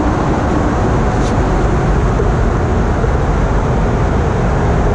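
A steady, loud low rumble and rush of outdoor noise, with one faint click about a second in.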